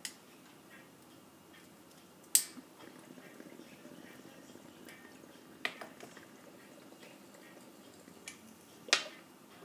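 Faint bubbling of a glass water bong being drawn on, with four sharp clicks spread through it.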